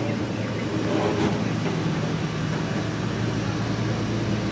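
Steady low hum of a large engine idling, with even outdoor noise over it.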